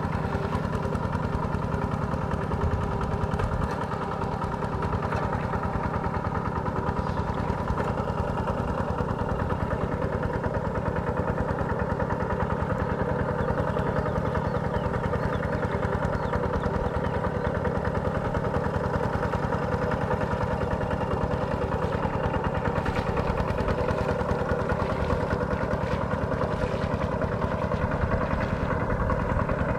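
Kubota RT140 single-cylinder horizontal diesel engine on a two-wheel walking tractor, running steadily with a fast, even chug as the tractor works a rice paddy on cage wheels.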